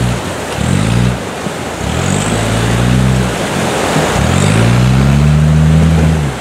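Land Rover Discovery Td5's five-cylinder turbodiesel revving in repeated surges as it crawls through rushing river water. Short revs come in the first half and a longer, sustained rev near the end, all over the steady roar of white water around the wheels.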